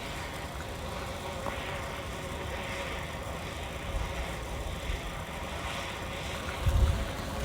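Wind buffeting the microphone with a steady low rumble, swelling into stronger gusts near the end, over a faint steady hum.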